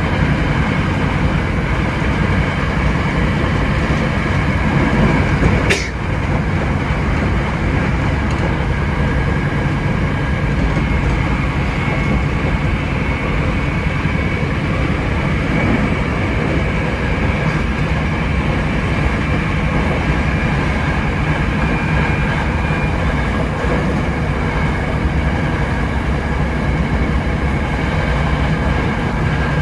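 Hankyu 7300 series electric train running at speed: a steady rumble of wheels and running gear, with steady high tones from its Toyo IGBT-VVVF inverter and traction motors. A single sharp knock sounds about six seconds in.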